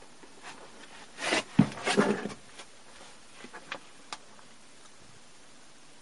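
Brief rustling and scraping with a dull knock, then a few small clicks, over a faint steady hiss.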